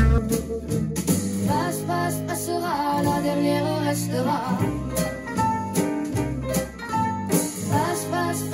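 A French song with guitar and a sung melody line between the lyrics.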